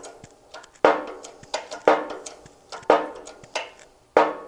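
Four sharp metal-on-metal knocks, about one a second, each ringing briefly, with a few lighter taps between: a steel driver bar in a shop press driving a Timken sprocket-shaft bearing race down into an aluminium Harley Ironhead case half until it seats on its snap ring.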